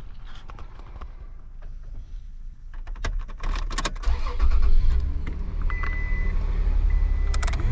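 Keys and a few clicks in the cab of a 2005 Toyota Tacoma, then a steady low hum of rushing air comes up about four seconds in as the truck is switched on and the newly installed blower motor starts blowing. A thin electronic chime tone sounds near the end.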